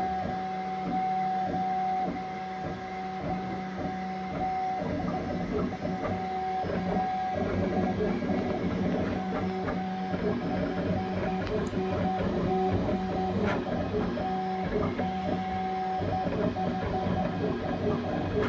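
Bambu Lab X1 Carbon 3D printer running a print: its stepper motors whine in steady tones that cut on and off in short stretches as the toolhead moves. The sound grows busier and more varied about five seconds in.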